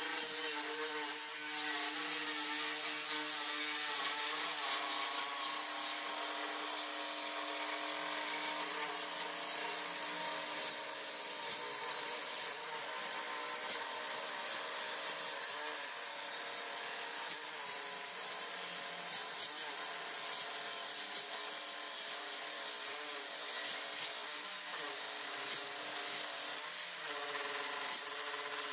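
Handheld circular saw running and cutting along a thick wooden slab: a steady motor tone under the rasp of the blade through the wood, with brief louder moments here and there.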